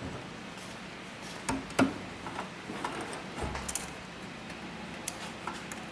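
A few scattered light clicks and knocks as a stack of polyester webbing is handled on a heavy-duty sewing machine table, with two sharper clicks about a second and a half in and a soft low thump later. The machine is not stitching.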